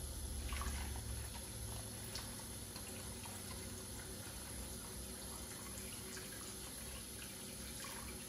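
Kitchen tap running water into a plastic tub holding two cuts of brined beef in a stainless steel sink, filling it to soak the salt out of the meat.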